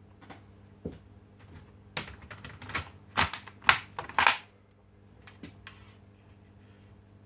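Irregular clicks and clatter of a laptop's plastic parts being handled, in a quick cluster between about two and four and a half seconds in, over a low steady hum.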